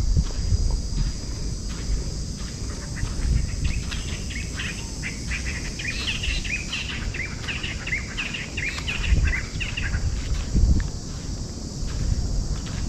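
Insects buzzing steadily, with a bird calling in a long run of quick chirps through the middle. Low rumbling and thumps run underneath.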